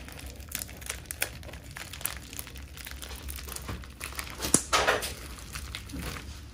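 Packet wrapping crinkling as a tightly wrapped parcel is unwrapped by hand. It comes as an irregular run of crackles, with a louder rustle about four and a half seconds in.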